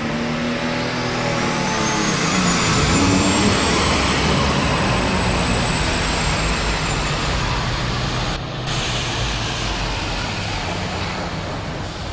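John Deere 4010 super stock pulling tractor's diesel engine at full power on a pull: the engine climbs in pitch over the first couple of seconds, then runs loud and steady under load with a high whine above it that rises and falls. It eases off near the end as the tractor stops.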